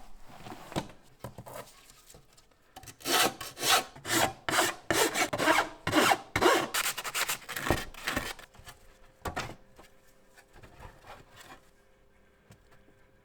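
Hand sanding of a 3D-printed plastic part: a run of rapid back-and-forth rubbing strokes, about two or three a second, for about five seconds, followed by a few lighter strokes.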